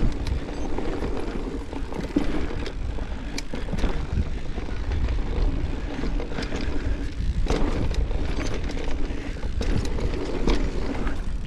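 Mountain bike descending a dirt trail, heard from the rider's GoPro: wind rumbling on the microphone, tyres running over the dirt and the bike rattling, with sharp knocks over bumps a few times.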